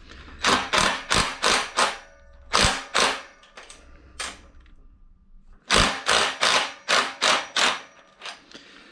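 Sharp hammer blows tapping a frame piece into place on a router table: a quick run of about five strikes, a few spaced blows, then another fast run of about seven near the end.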